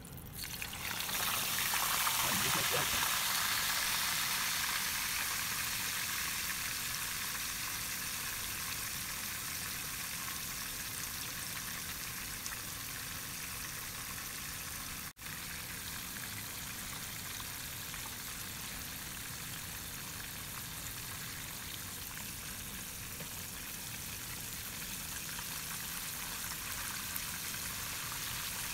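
A whole sea bass going into hot frying oil: a loud burst of sizzling about a second in that eases into a steady sizzle as the fish fries. The sound cuts out for an instant about halfway.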